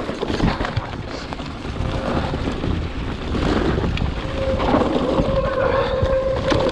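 Wind buffeting the microphone over the rumble and rattle of a mountain bike rolling along a trail. A steady whine joins about two-thirds of the way through.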